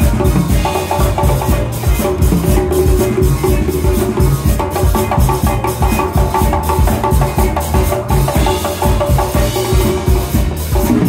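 Live band playing: congas hand-drummed in a busy rhythm up front, with electric bass and electric guitar behind.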